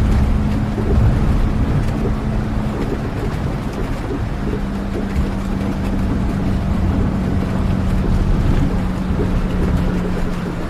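Steady rain ambience heard from inside a moving vehicle, with the engine's low hum underneath. The hum drops slightly in pitch about three seconds in.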